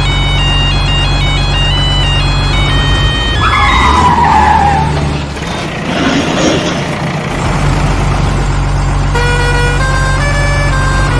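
A plinking melody of short notes over a steady low vehicle-engine rumble. About three and a half seconds in, the melody stops and a falling whistle-like tone sounds while the rumble drops away for a few seconds. The rumble and the melody return near the end.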